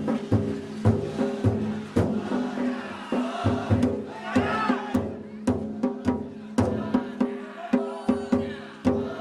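Danjiri festival music: drums and gongs beaten in a steady rhythm, about two to three beats a second, over lingering ringing tones. A crowd shouts briefly about halfway through.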